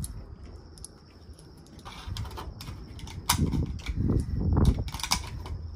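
Sharp metallic clicks and clacks of an AR-15 rifle being handled and readied to fire, a few crisp ones in the second half.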